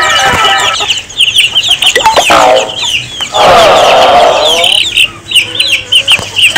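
Domestic chicks peeping, with many short, high, downward-sliding cheeps in quick succession. A lower, longer clucking call comes in about halfway through.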